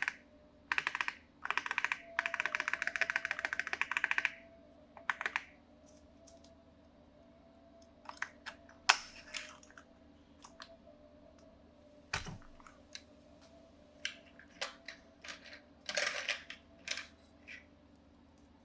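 Typing on a Lofree Touch 100 mechanical keyboard with lubed Jelly Black switches: a fast run of keystrokes in the first four seconds, then scattered single key presses and short clusters, with one sharper click about nine seconds in.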